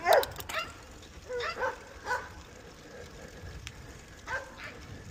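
A dog barking in short, repeated barks: the loudest twice right at the start, a few more about one and a half to two seconds in, then two fainter barks near the end.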